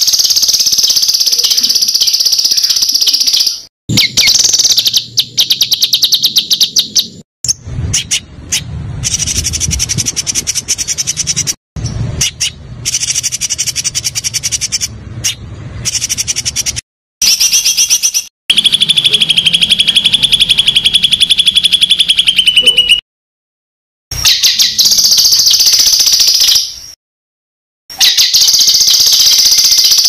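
A songbird singing loud phrases of fast, rapid-fire repeated notes and trills, each a few seconds long, separated by abrupt short silences. This is masteran song, played to train caged songbirds to copy it.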